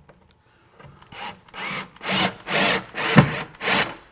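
Bosch cordless drill/driver driving a screw through the plywood cabinet side into a wall stud, in about six short bursts roughly half a second apart that begin about a second in.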